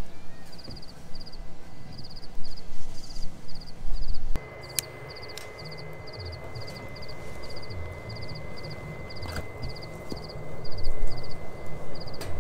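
Night insects chirping steadily: short high-pitched chirps in quick groups, about two groups a second, over an uneven low rumble. A few sharp clicks come in after about four seconds.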